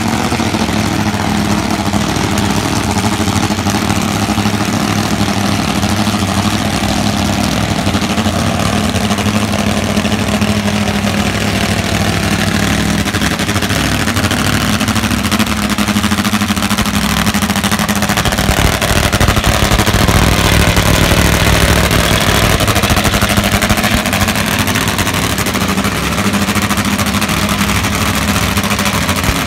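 Nitromethane-burning Top Fuel drag motorcycle engines idling steadily and loudly, a little louder around twenty seconds in.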